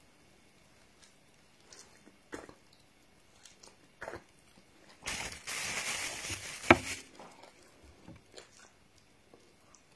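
Close-up eating sounds: scattered bites and crunches of fresh coconut flesh being chewed. About halfway there is a louder, noisier stretch of about two seconds that ends in a sharp click.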